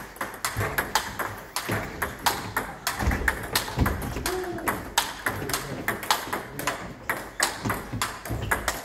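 Table tennis balls clicking off rubber paddles and the tabletop in rallies, a quick, uneven run of sharp clicks, with more clicks from neighbouring tables mixed in.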